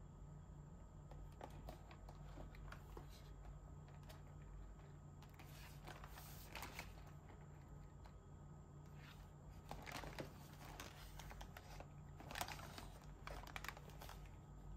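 Faint rustling and light taps of a cardboard chocolate box being handled and turned over in the hands. The sounds come in several short clusters, the loudest about six and twelve seconds in.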